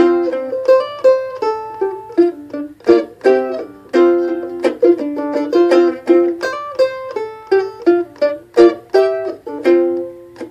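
Mandolin picked solo, an instrumental break of quick single-note melody lines and short phrases, each note struck sharply and dying away quickly.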